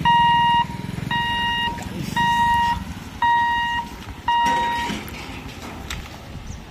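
Electronic warning beeper sounding a single steady tone in short beeps about once a second, five beeps in all, stopping about five seconds in. A low engine hum runs under the first three beeps.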